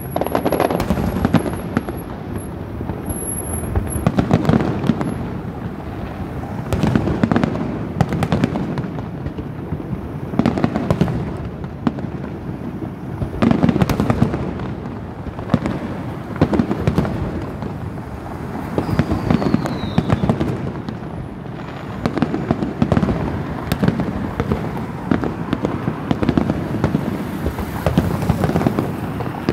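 Aerial fireworks display going off nonstop: shell bursts booming one after another with crackling between them, louder clusters every second or two.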